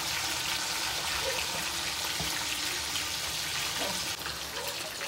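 A metal spoon stirring wet, yogurt-marinated chicken pieces in a metal pan: wet squelching and scraping over a steady hiss, a little quieter about four seconds in.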